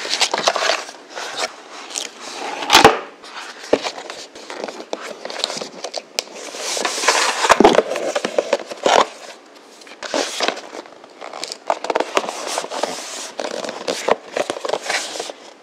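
Rustling and crinkling of a cardboard test-kit box and its paper shipping envelope being handled, folded and sealed by hand, with a few sharp clicks and taps.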